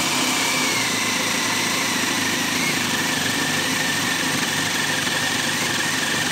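HART 20V cordless drill boring a 1-inch spade bit into a wooden beam. The motor runs steadily under load with a faint whine that sags a little in pitch, and the drill has trouble with this bit size.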